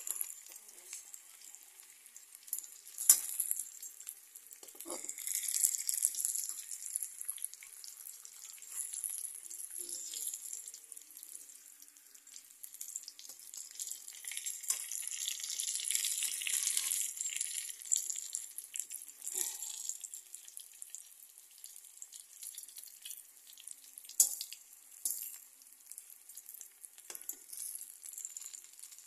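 Oil sizzling as whole green bell peppers shallow-fry in a metal kadai, the hiss growing louder twice. Sharp clinks of metal utensils against the pan come about three seconds in and again near the end.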